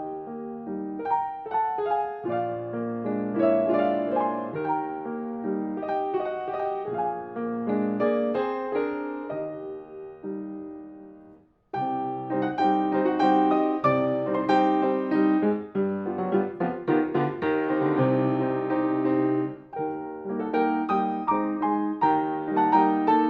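Restored 1961 Broadwood baby grand piano being played, with notes and chords across its range. About halfway through, the sound dies away to silence, then the playing starts again abruptly.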